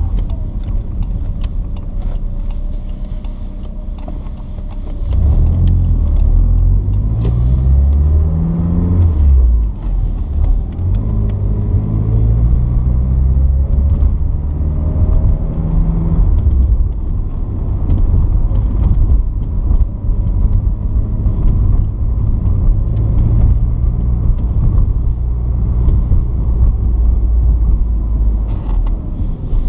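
1981 Porsche 944's 2.5-litre four-cylinder engine accelerating: revs climb from about five seconds in, drop at a gear change just before ten seconds, and climb again before settling to a steady cruise.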